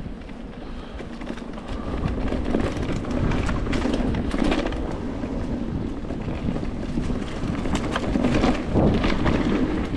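Cube Stereo Hybrid electric mountain bike ridden over a rough trail: tyres rumbling on the ground, with wind buffeting the microphone and quick rattles and knocks from the bike over bumps. It gets louder about two seconds in.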